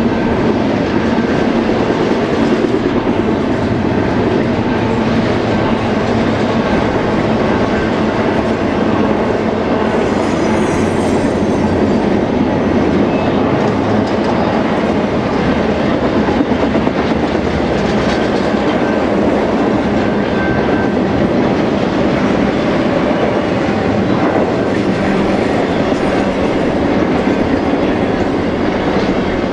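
A BNSF freight train's cars rolling past: a steady rumble with the clickety-clack of wheels over the rail joints.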